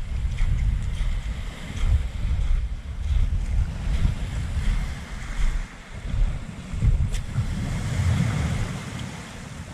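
Wind buffeting the microphone in gusts, over small waves washing up a pebble and coral-rubble shore.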